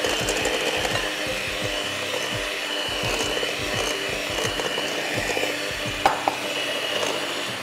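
Electric hand mixer running steadily, its beaters whisking eggs and sugar in a glass bowl, with a couple of short knocks about six seconds in; it stops near the end.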